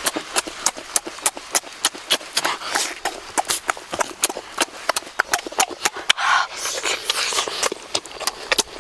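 Close-miked mouth sounds of eating cooked duck: wet lip-smacking and chewing, sharp irregular smacks several times a second.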